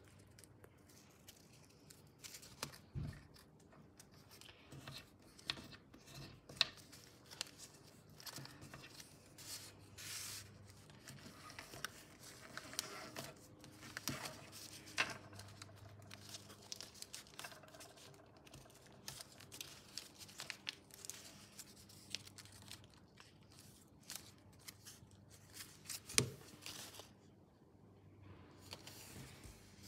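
Paper being folded and creased by hand into a paper plane: scattered crinkling and rustling with short sharp clicks, and two louder knocks, one about three seconds in and one near the end.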